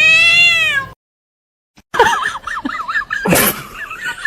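A cat's long, high meow that rises and falls and cuts off about a second in. After a brief silence come rapid, high warbling calls and one sharp loud noise about three seconds in.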